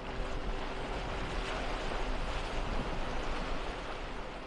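Steady rushing wash of sea water and wind, with a few faint steady low notes held underneath.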